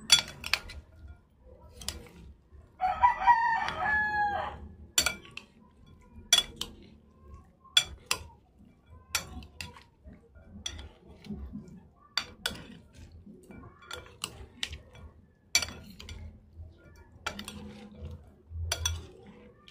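A spoon clinking sharply against a bowl every second or so as chicken and sauce are stirred together. A rooster crows once, about three seconds in, in one wavering call of a second and a half.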